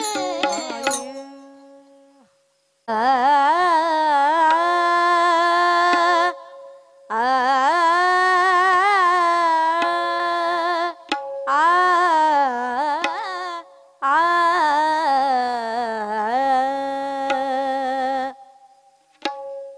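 A woman singing a drawn-out devotional melody without clear words, in four long phrases of a few seconds each with wavering, gliding pitch and short breaks between them, over a faint steady held drone note.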